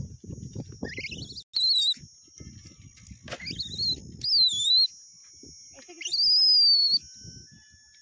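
A hoe scraping and chopping into dry, clumpy soil in two spells. Over it come three loud, high whistles that rise and waver, each about a second long, the third near the middle, and a steady high hiss runs underneath.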